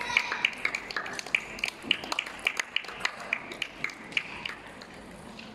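Table tennis balls bouncing on tables and striking paddles during rallies at several tables: a quick, irregular run of sharp clicks.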